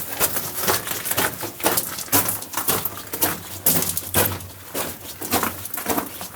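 Footsteps crunching on loose rock and gravel, a dense run of irregular sharp crunches and clicks, several a second.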